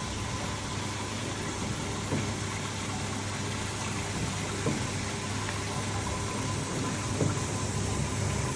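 Sugarcane washing machine running with a cane passing through: a steady motor hum under an even hiss of water spray and three rotating brushes, with a few light knocks scattered through.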